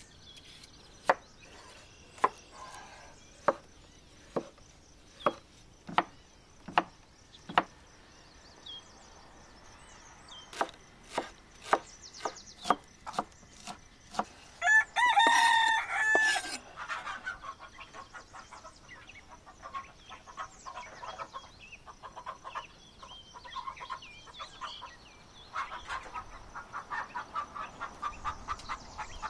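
Knife chopping watercress on a wooden cutting board, single sharp chops a little under a second apart. About halfway through, a rooster crows once loudly, and quicker, softer tapping follows.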